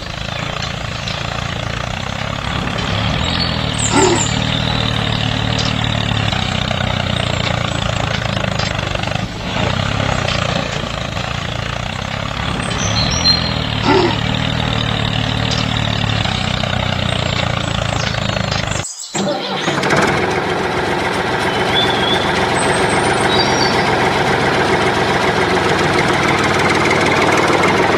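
Tractor engine running steadily. The sound breaks off for a moment about two-thirds of the way through, then starts again.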